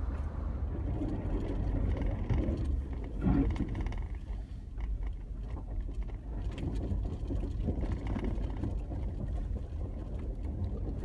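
Off-road 4x4 driving along a rough trail: a steady low engine and road rumble.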